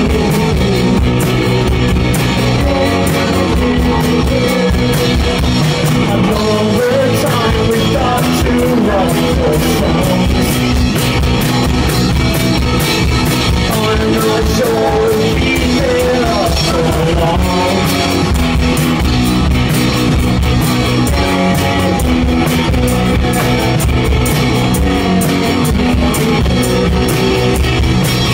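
Live indie rock band playing: guitar, drum kit and a shaken tambourine driving a steady beat, with singing over the top.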